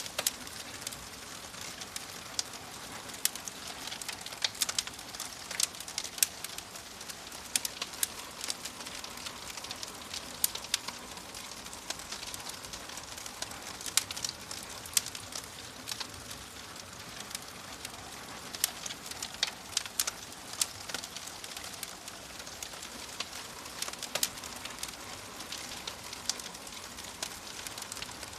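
Wood fire crackling in a fireplace: a steady soft hiss with many irregular sharp pops and snaps.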